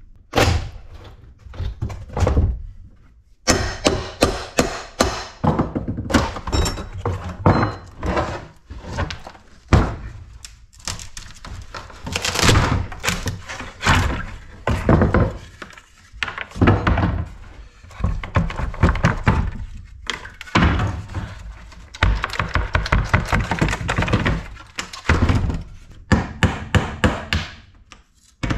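Runs of wooden thunks and knocks, several a second, as old V-joint tongue-and-groove boards are pried and knocked apart with hand tools.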